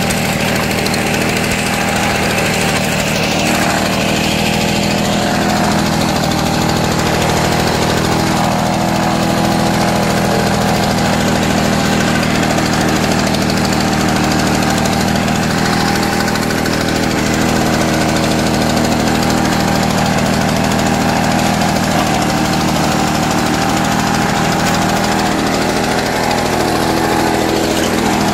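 Victa Cortina 2 rotary lawn mower's 125cc two-stroke engine running steadily as the mower is pushed across grass, mowing.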